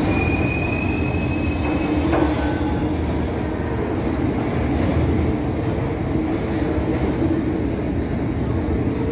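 A New York City Subway 3 train of R62 cars pulling out of the station and running off into the tunnel, with a steady rumble of wheels on rail. A thin wheel squeal sounds for the first two seconds or so, and a single sharp clank comes a little after.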